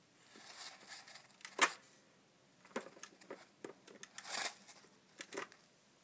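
Hamster digging and rolling in a plastic tray of bath sand: a run of dry scratches and ticks, the sharpest about one and a half seconds in, with a longer rustle a little after four seconds in.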